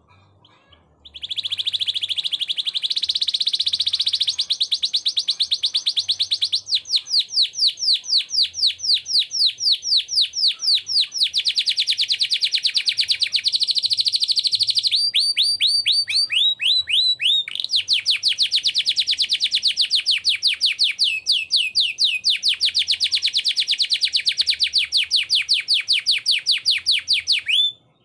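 Domestic canary singing one long unbroken song of fast trills and rolls. The phrase changes every few seconds. It starts about a second in and stops abruptly near the end.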